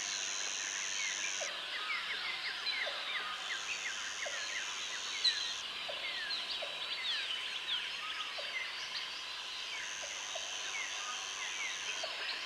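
Tropical jungle ambience: many overlapping short chirps and calls from birds and other animals, with a high steady buzz that cuts in and out three times.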